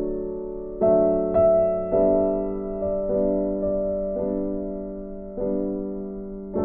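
Background piano music: soft chords struck every second or so and left to die away.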